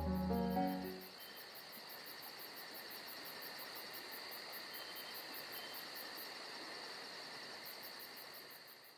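Piano music ends about a second in and gives way to a steady, fast rhythmic chirping of insects, which fades out near the end.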